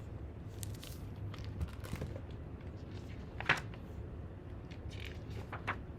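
Quiet room tone with a low steady hum and a few faint, short clicks, the clearest about three and a half seconds in.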